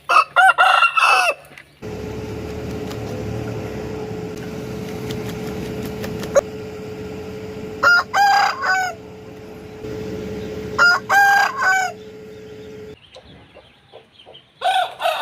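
Aseel roosters crowing: four short crows, one at the start, two in the middle and one at the end. A steady hum and background noise run under the middle part.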